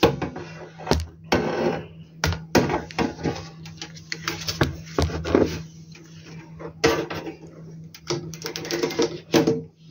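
Irregular clicks, knocks and clatter of hand tools and metal parts as a solar inverter's casing is opened, over a steady low hum.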